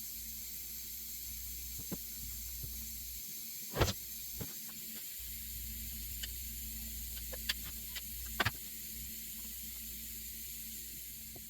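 Steady hiss and low hum of the room, with a few light knocks and clicks of wooden hive-cover parts being handled and fitted; the loudest knocks come about four seconds in and again just past eight seconds.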